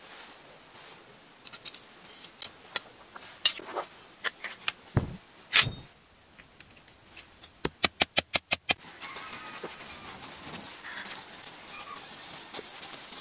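Small brass sword fittings clinking as a hilt is assembled: scattered sharp metallic clinks, then a quick run of about eight taps in a second. After that a steady rustle of cord being wrapped around the handle.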